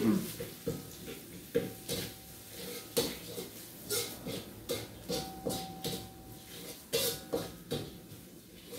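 Metal spatula scraping and clanking against a thin wok, about two strokes a second, as shallots and garlic are stir-fried in sizzling oil.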